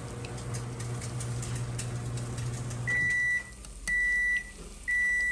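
Microwave oven running with a steady hum that stops about three seconds in, followed by its finished signal: half-second beeps, one a second, three in all.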